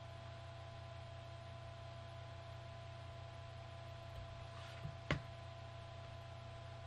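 A steady low electrical hum with a faint high whine, and a small knock followed by one sharp click about five seconds in.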